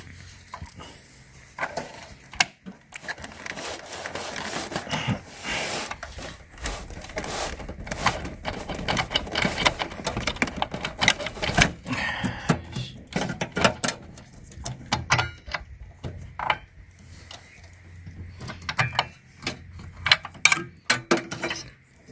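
Irregular clicks, scrapes and rustling of plastic cable connectors and ribbon cables being handled and pulled loose inside a desktop computer case.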